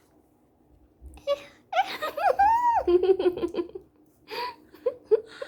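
An excited high-pitched squeal that rises and falls, breaking into a quick run of giggling, about two seconds in; a few short vocal sounds follow near the end.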